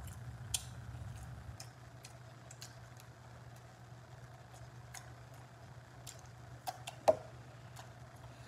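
Quiet eating sounds: scattered wet mouth clicks and smacks while meat is chewed off a chicken bone, over a low steady hum. The sharpest click comes about seven seconds in.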